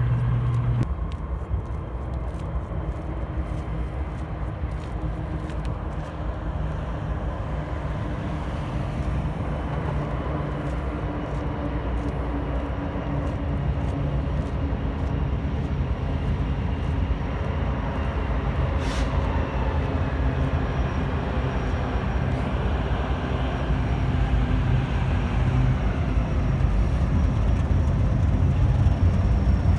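Train rolling past with a steady rumble.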